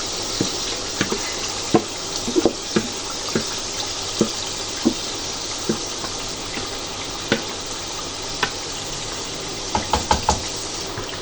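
Marinated chicken sizzling in a pot of fried tomato masala, a steady hiss, with a spoon knocking and scraping against the pot at irregular moments as it is stirred, several quick knocks near the end.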